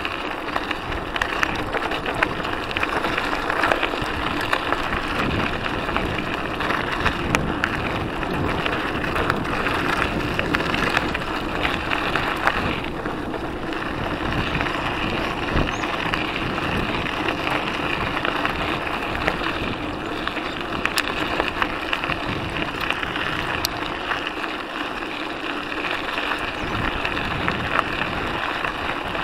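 Mountain bike rolling over a loose gravel trail: a steady crunch of tyres on gravel, with the bike's parts rattling in many small clicks and knocks over the bumps.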